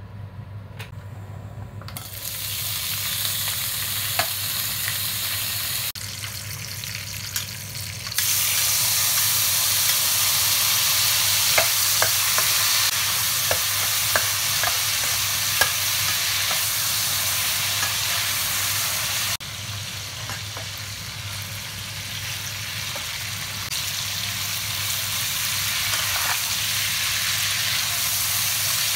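Oil sizzling loudly in a wok as cured pork, then fish mint roots, are stir-fried, with a metal spatula clicking and scraping against the pan now and then.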